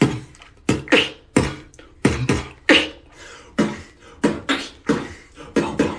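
Beatboxing: a string of about a dozen sharp vocal drum hits in an uneven rhythm, each fading quickly.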